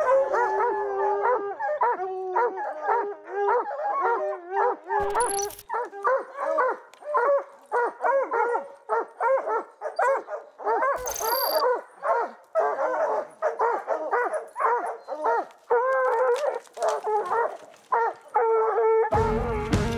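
Several hunting hounds baying and barking at a cougar treed in a pine, a fast run of bays with some longer drawn-out howls early on. A couple of brief crackles break in, and a loud rush of noise comes in near the end.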